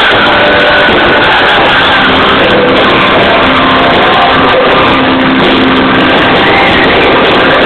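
Live dance band playing, recorded on a mobile phone that cannot cope with the volume, so the sound is loud, distorted and muddy throughout.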